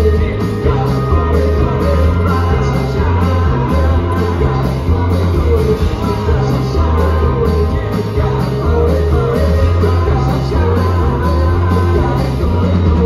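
Live rock band playing loudly, with a steady pulsing bass beat under guitars and wavering melody lines.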